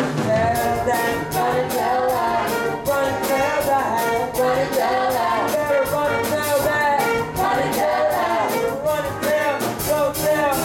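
Live pit orchestra with brass playing an upbeat show tune with a steady drum beat, with voices singing along.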